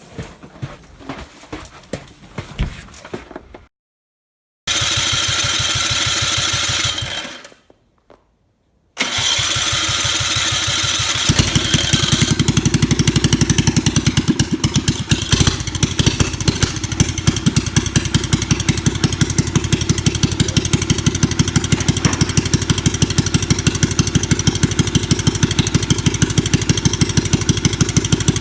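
Scattered handling clicks, then after a couple of cuts the pocket bike's small engine starting and running steadily. Its exhaust pulses come in a fast, even beat.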